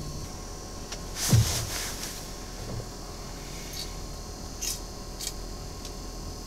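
Small handling noises: a brief rustle about a second in, then a few light clicks, over a faint steady hum.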